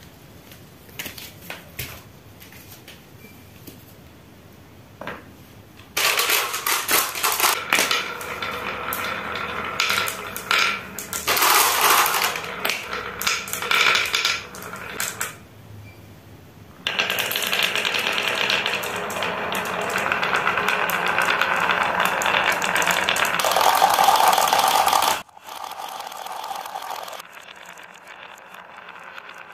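A batch of marbles rolling and clattering down the wavy grooves of a wooden HABA marble-run slope, clicking against the wood and each other. It comes in two long stretches of dense rattling with a short pause between, after a few single clicks. The second stretch cuts off suddenly.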